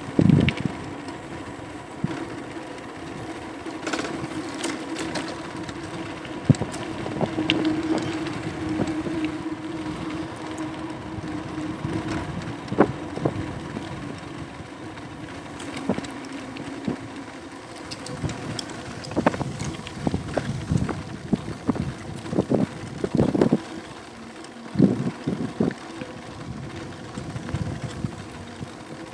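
An e-bike being ridden, heard close up: a steady electric motor hum with scattered rattles and knocks from the bike over the road. The hum fades about two-thirds of the way through, and there is some wind on the microphone.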